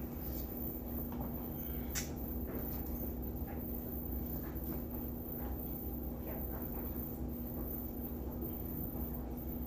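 Quiet eating and sipping sounds: scattered faint clicks and mouth noises, one a little sharper about two seconds in, over a steady low hum.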